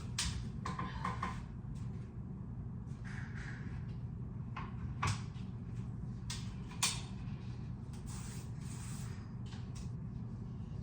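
A few sharp knocks and clicks from objects being handled, about 5 and 7 seconds in, with some soft rubbing between them, over a steady low hum.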